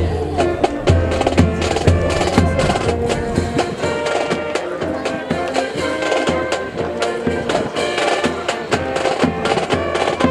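Music with drums, and many sharp clicks and taps over it.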